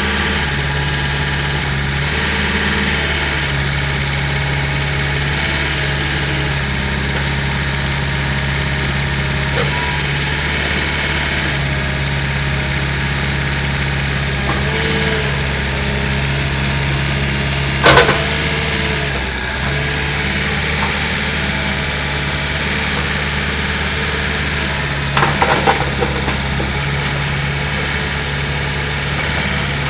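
Terex TC75 compact excavator's diesel engine idling steadily. There is one sharp, loud metallic clank a little past halfway, and a short rattle of knocks near the end.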